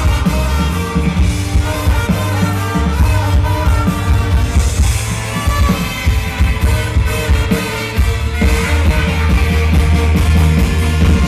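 Live band playing loud music with a driving drum beat and heavy bass under sustained instrument lines.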